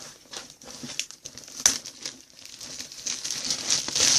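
Plastic wrapping being torn and crumpled off a box by hand: irregular crinkling and crackling with a few sharp louder rips, the loudest about two seconds in and near the end.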